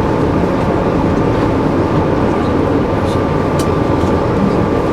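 Steady rumble and rattle of a passenger train car running on the rails, heard from inside the car, with a thin steady high tone over it.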